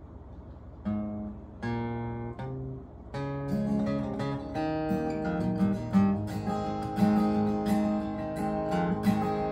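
Solo acoustic guitar opening a song: three separate chords about a second apart, each left to ring, then steady continuous playing from about three seconds in.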